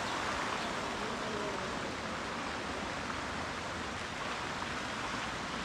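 Large public fountain's water jets splashing in a steady, even rush.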